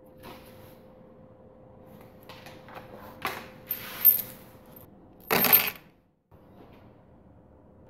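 Workshop handling noises of metal tools and parts: a run of light metallic clicks and clinks, then a louder clatter about five and a half seconds in.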